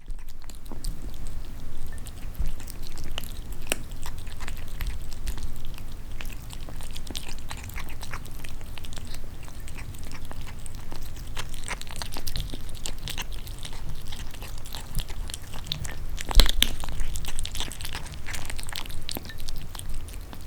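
Kittens and cats moving about close to the microphone: scattered taps, scratches and crunching noises, with a louder thump about sixteen seconds in.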